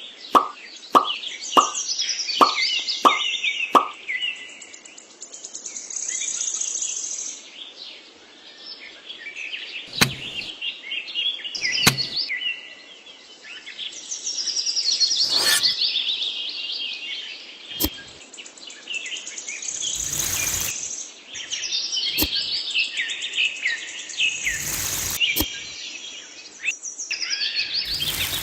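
Small birds chirping and trilling without a break. In the first few seconds there is a run of plops at about two a second, and a few sharp knocks come later.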